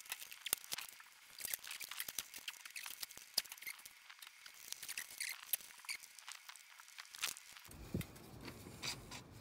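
Screwdriver undoing the Phillips head screws on a Razor E200 electric scooter's rear wheel hub: a run of small sharp metal clicks as the screws are worked loose, with a low rumble joining near the end.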